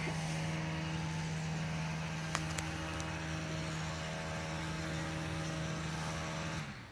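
Steady engine hum holding one pitch, with two faint clicks a little over two seconds in; it cuts off just before the end.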